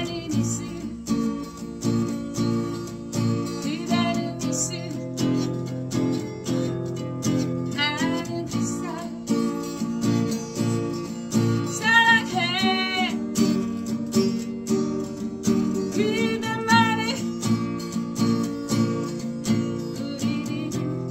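A woman singing with vibrato over her own steadily strummed acoustic guitar. Sung phrases come roughly every four seconds over continuous chord strumming.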